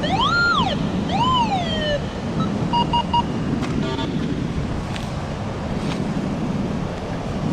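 Metal detector's audio tone sweeping up and falling back twice as the search coil passes over a buried metal target, followed by three short beeps a little later. Wind and surf noise underneath.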